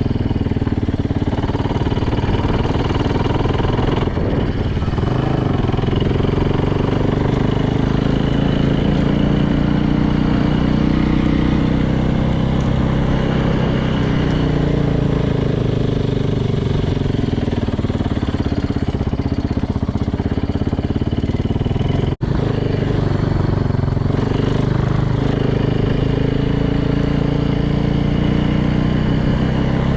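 Yamaha YZ450's freshly rebuilt single-cylinder four-stroke engine running while the dirt bike is ridden, its pitch rising and falling as the throttle opens and closes. There is a brief dropout about 22 seconds in.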